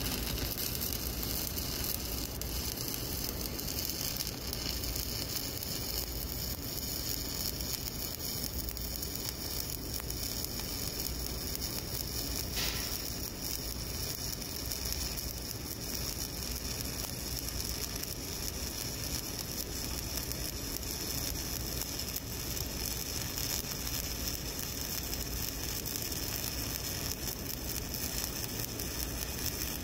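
Stick (shielded metal arc) welding with a 7018 electrode: the arc burns with a steady, even hiss and crackle, without a break, as a cover pass is run along a horizontal groove weld.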